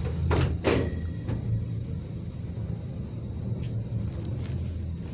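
Cable car gondola cabin running through the station as it arrives, with a steady low rumble. Two sharp clunks come just under a second in, then a few lighter knocks and ticks.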